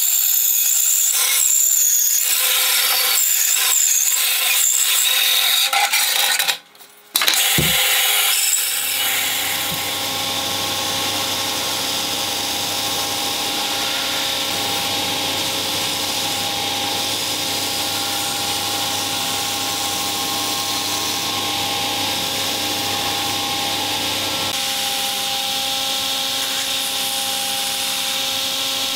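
A band saw cutting through a wooden strip. After a brief break about seven seconds in, a belt grinder runs with a steady hum while wood is sanded against its abrasive belt.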